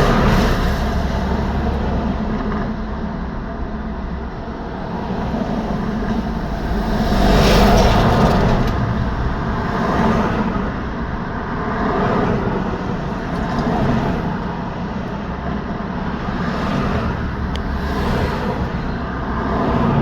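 Steady road traffic: cars and trucks passing one after another, each pass a swell of tyre and engine noise over a continuous low rumble. The loudest pass comes about eight seconds in.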